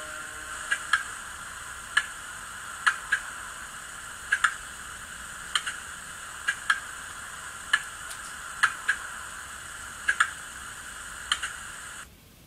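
Howes DCC sound decoder in a Bachmann class 47 model diesel locomotive, playing through its small speakers: the engine hum dies away at the start, leaving a steady hiss with sharp ticks, single or in pairs about once a second, which cut off suddenly near the end.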